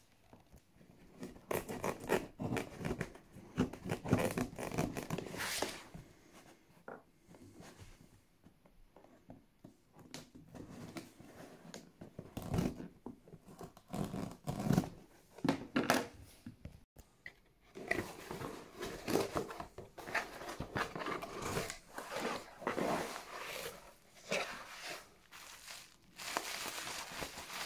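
A cardboard box being opened by hand: tearing and rustling of the taped cardboard, then plastic bubble wrap crinkling near the end.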